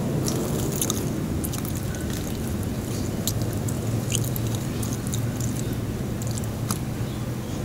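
Crisp, deep-fried skin of a crispy pata (pork knuckle) crackling in scattered sharp snaps as it is torn apart by hand, over a steady low hum.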